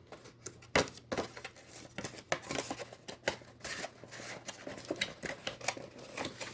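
Hands opening and unpacking a cardboard box of trading-card packs: irregular rustling, scraping and light taps of cardboard and foil wrappers.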